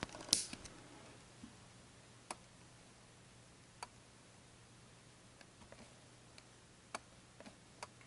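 Faint, irregular small clicks, with one sharper click right at the start, over a low steady hum in a quiet room.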